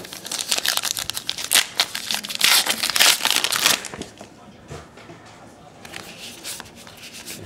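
A trading card pack's wrapper being torn open and crinkled, loudest about two to three and a half seconds in, then quieter rustling as the cards are handled.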